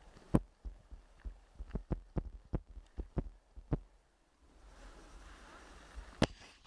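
Muffled, irregular thumps, roughly two or three a second, from the jolting of travel along a rough dirt trail. They stop for a moment and give way to a rustling hiss of brush scraping past, then one sharp knock near the end.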